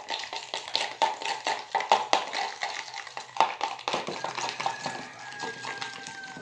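A spoon stirring runny glue slime in a plastic bowl, clicking and scraping against the bowl in quick irregular taps that thin out about four seconds in. The slime is still liquid and not yet activated.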